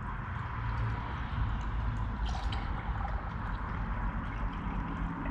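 Coolant being poured steadily into a minivan's cooling system without a funnel, a continuous liquid pour.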